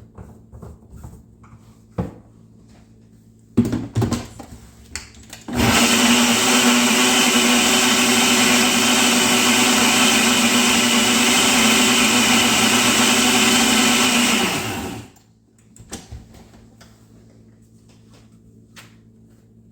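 Countertop blender running steadily for about nine seconds, blending ice cream, crushed pineapple and juice, then winding down when switched off. Before it starts there are a few sharp knocks and clicks as it is set up.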